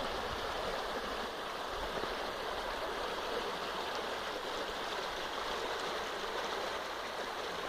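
Steady rushing of a river running high and fast, swollen with snowmelt.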